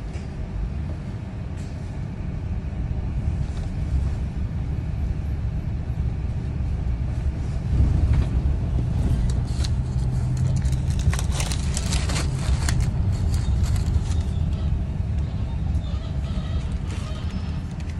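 Low rumble of a double-decker bus heard from its upper deck as it pulls away from a stop and drives on through traffic, growing louder about two seconds in. Midway there is a run of sharp clicks and rattles.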